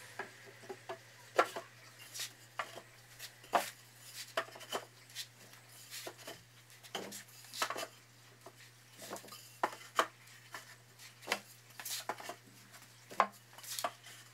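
Wooden arbor boards being set down one after another into notched wooden rails, making irregular sharp wooden knocks and clacks. The loudest come a little over a second in and near the end.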